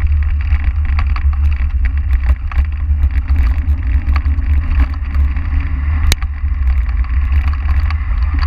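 Wind rumbling on the microphone of a bicycle-mounted camera, with a stream of small rattles and clicks as the bike rolls over a rough grass and dirt track. A sharp knock comes about six seconds in.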